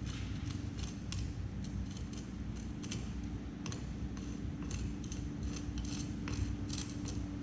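Metal putty knife scraping and clicking on a concrete floor as crack filler is worked along a crack: many short, irregular scrapes, over a steady low hum.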